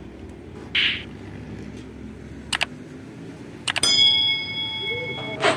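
Subscribe-button animation sound effect: a short whoosh, then a few mouse clicks, then a bell ding that rings for more than a second. A short knock near the end.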